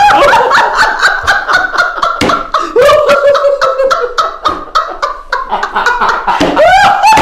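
A woman and a man laughing loudly and helplessly in rapid repeated bursts, with a high rising whoop at the start and again near the end.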